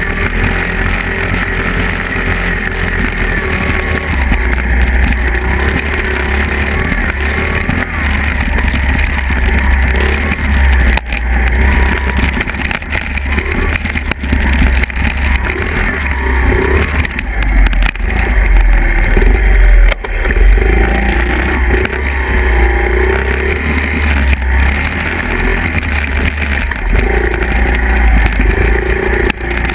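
Two small Honda 50cc single-cylinder four-stroke dirt bike engines, an XR50R and a CRF50, running on a trail ride, their pitch rising and falling with the throttle. A heavy wind rumble on the camera's microphone runs underneath.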